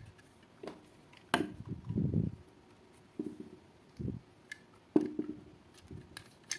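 Small hand-work noises of wiring a wall socket: scattered light clicks and taps, with a brief low rustle about two seconds in, as a trimmed wire is worked into the socket's terminal. The sharpest clicks come about a second and a half in and about five seconds in.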